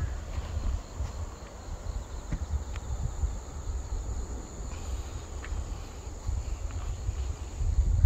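Wind buffeting the microphone as an irregular low rumble, with a steady high-pitched insect trill behind it.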